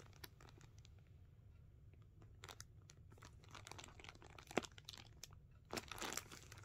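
Faint crinkling and crackling of clear plastic packaging on a crochet ornament kit as it is handled, with a sharper click about four and a half seconds in and a louder rustle near the end.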